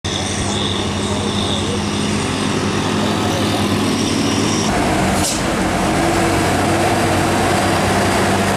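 Diesel engines of Hino heavy trucks running as they climb a steep winding road: first a tractor unit hauling a shipping container, then another truck. The engine drone changes abruptly about halfway through.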